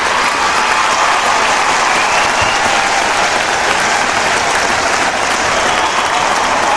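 Large crowd applauding steadily, dense clapping with some voices mixed in.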